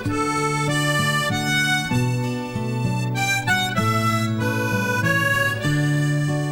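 Instrumental Irish music: a wind instrument plays a melody of held notes over steady low sustained notes.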